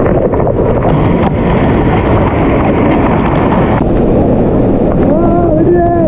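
Waterfall water pouring and splashing straight onto a GoPro camera: a loud, dense rushing noise with no break. About five seconds in, a man's voice calls out over it.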